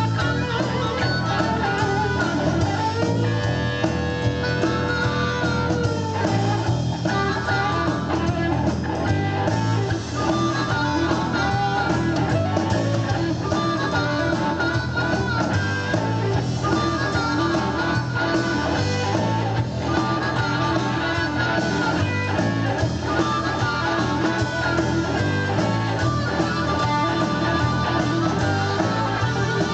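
Live blues-rock band playing an instrumental passage, with guitar leading over bass and drums.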